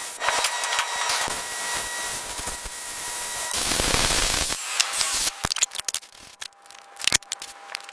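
Car bodywork being worked on: steady hiss and rubbing noise, with a louder, longer hiss about three and a half seconds in that lasts about a second. Scattered sharp clicks and knocks follow in the last few seconds.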